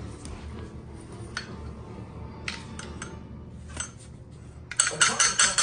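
Metal hardware clicking and clinking as the rifle's sling attachment is handled: a few scattered clicks, then a quick run of sharp metallic clinks near the end.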